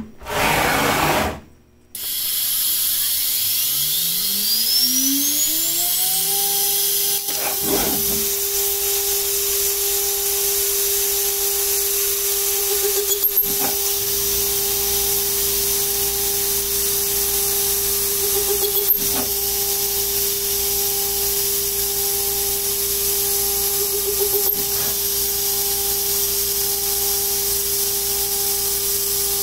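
CNC router spindle spinning up with a rising whine and then running at a steady high whine, over a steady hiss from the air-blast nozzle. About every five to six seconds a short cutting noise as the small bit plunges into the aluminium plate to machine the next hole.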